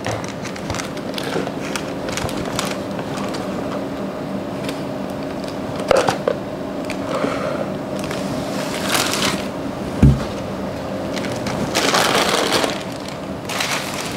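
A sheet of baking paper rustling and crinkling as it is handled and peeled off rolled shortbread dough, loudest about nine seconds in and again near the end. There is a sharp knock about six seconds in and a dull thump about ten seconds in, over a steady low hum.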